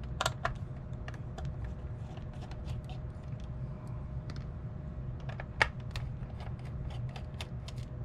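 Light irregular clicks and taps of a small screwdriver and fingers on the plastic case of a Sony WA-55 cassette recorder as its case screws are taken out, with one sharper click about five and a half seconds in, over a steady low hum.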